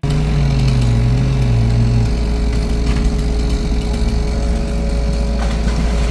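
An engine runs steadily with a heavy low rumble. A lower engine note steps down slightly and drops out about two seconds in.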